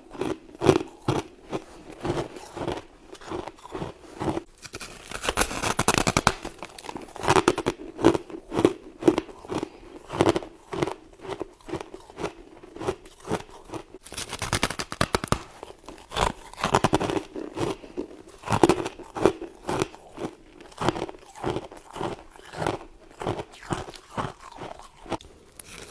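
Close-up crunching of a person biting into and chewing soft freezer frost, a steady run of crisp crunches about two or three a second.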